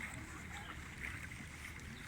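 Wind rumbling on the microphone over a soft wash of water lapping and splashing, with no single event standing out.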